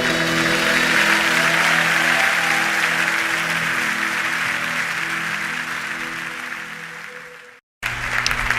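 Audience applauding over a held final chord from the accompaniment, both fading away together; the sound cuts off abruptly about seven and a half seconds in, and instruments start up again just after.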